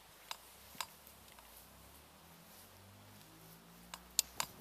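A few sharp clicks over a faint steady hiss: two about half a second apart in the first second, then three close together near the end.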